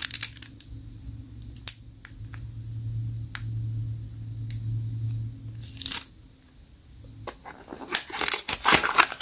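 Handling of toy packaging: a few light ticks and a short plastic rustle while a squishy toy is squeezed beside its clear plastic bag, then, in the last second or so, rapid crinkling and tearing as a small cardboard blind box is pulled open.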